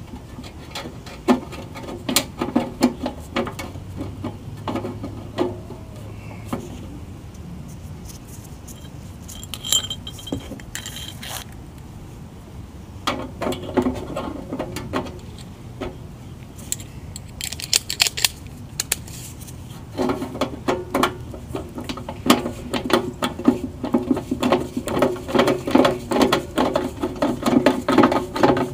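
Rapid metallic clicking in several bursts, the longest starting about two-thirds of the way through: a hand tool, likely ratcheting, fastening the top plate back onto a galvanized squirrel-cage blower wheel.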